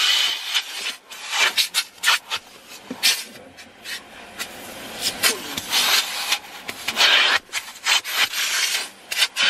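Self-service car wash vacuum hose sucking air with a loud hiss, its nozzle rubbing and scraping over leather car seats. The hiss swells and drops again and again as the nozzle is pressed down and lifted.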